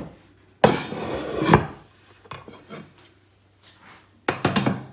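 Terracotta roasting pot scraped across a wooden cutting board: a rough rasp of about a second, and a shorter scrape near the end.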